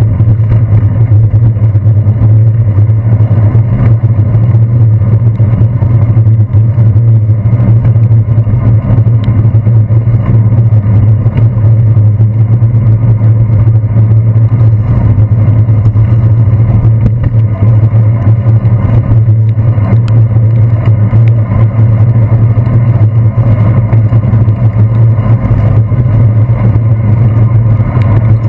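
Loud, steady low rumble of wind and road vibration picked up by a handlebar-mounted GoPro Hero 2 while cycling on wet streets, with no break.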